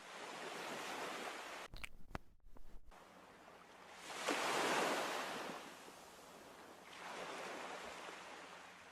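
A soft rushing wash of noise that swells about four seconds in and again around seven seconds, with a few faint clicks near the start.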